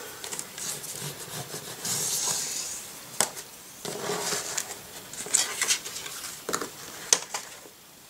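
Purple cardstock being slid, pressed and rubbed against a plastic scoring board while it is scored for a small corner fold, with a rubbing hiss early on and several sharp taps and clicks.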